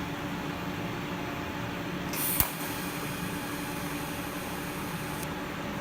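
Gas welding torch flame hissing steadily while aluminium is tack welded. About two seconds in, a sharper, brighter hiss starts with a single click and lasts about three seconds before it drops away.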